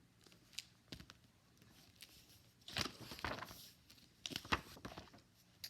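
Faint paper rustling and soft clicks of a picture book being handled and its pages turned, with two louder rustles about three seconds in and again past four seconds.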